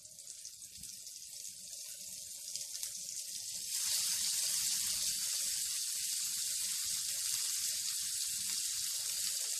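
Chicken and vegetable skewers sizzling in hot oil in a pan, a hiss that builds and jumps up sharply about four seconds in as a second skewer goes down, then holds steady. The spattering comes from the water in the chicken and vegetables.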